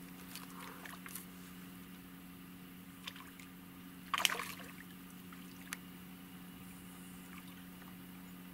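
A short splash on the pond surface about four seconds in, from something breaking the water, with a few faint small ticks and splashes around it. A steady low hum runs underneath.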